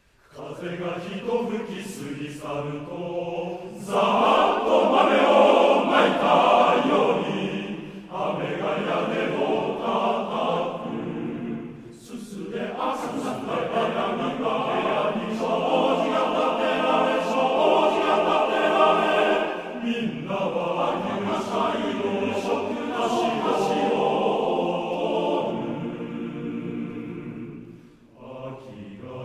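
Men's choir singing unaccompanied in close harmony. It comes in from silence just after the start and moves through several phrases with brief breaths between them, swelling loudest a few seconds in.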